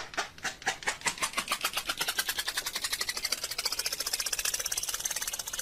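A rapid run of sharp clicks that speeds up steadily, from about four a second to a fast rattle, rising in pitch as it goes, then cuts off abruptly.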